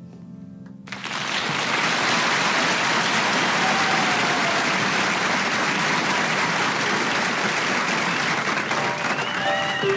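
The last piano notes fade out, and about a second in an audience breaks into steady applause. Near the end, piano notes start again under the applause.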